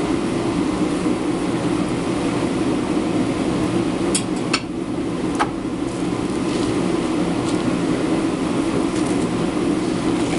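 Forge burner running with a steady roar, and three sharp metallic clicks about four to five and a half seconds in.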